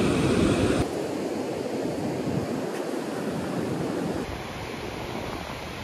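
Small waves washing up on a sandy beach, a steady rush of surf that drops suddenly in level a little under a second in.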